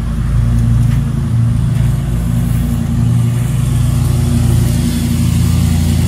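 An engine running steadily nearby: a loud, even, low hum that holds one pitch throughout.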